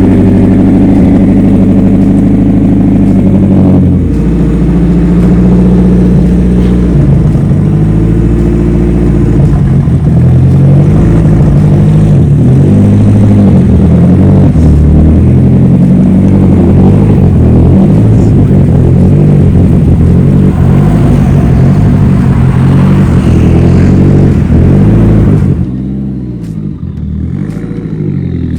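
Nissan S15 Silvia's SR20 four-cylinder engine running loud and being revved, its pitch holding and shifting. Near the end it gets quieter, with the revs rising and falling.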